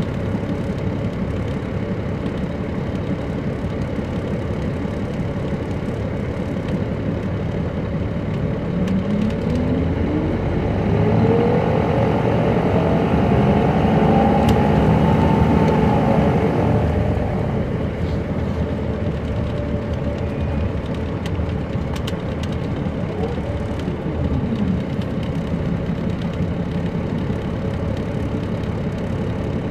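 Caterpillar C13 ACERT diesel engine of a 2007 MCI D4500CL coach running. From about nine seconds in, a rising whine climbs while the engine sound swells for several seconds as the coach picks up speed, then it eases off. A short falling whine follows a few seconds later.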